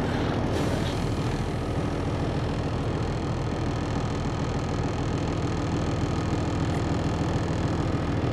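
Peterbilt 362 cabover's Caterpillar diesel idling steadily, heard from inside the cab. The air system is aired up and the truck is ready to move.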